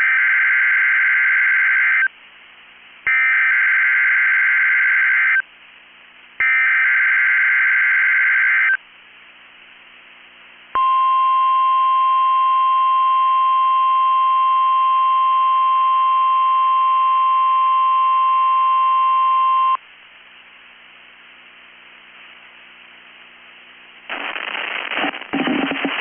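NOAA Weather Radio Emergency Alert System test signal. Three short bursts of warbling SAME digital header tones are followed by the steady 1050 Hz weather radio warning alarm tone, held for about nine seconds. A voice begins the test announcement near the end.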